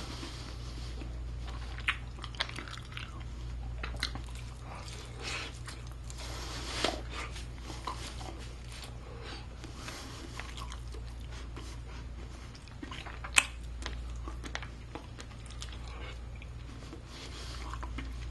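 A person biting and chewing a piece of baked chicken drumstick, with scattered wet smacks and clicks over a steady low hum; one sharp click stands out about thirteen seconds in.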